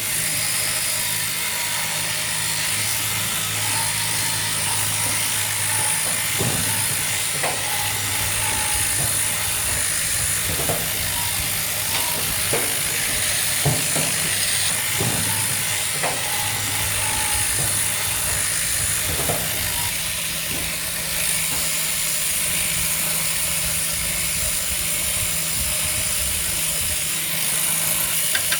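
Electric sheep-shearing handpiece running steadily while crutching the wool from a sheep's rear end, a constant high buzz over a low hum, with a few light knocks along the way.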